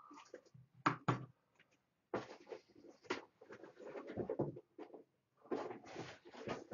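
Packaging being handled as items are pulled out of a box: rustling, with two sharp knocks about a second in.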